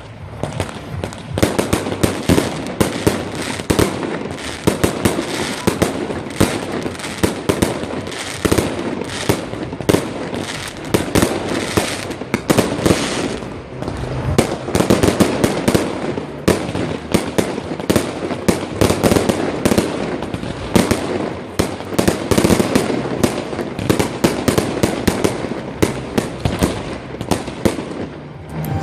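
A fireworks display going off in a dense, continuous barrage of bangs, many a second, with no pause.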